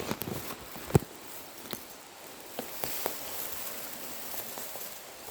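Footsteps with scattered knocks and rustles, someone picking their way over rough ground. One sharp knock about a second in is the loudest. A steady high hiss runs underneath.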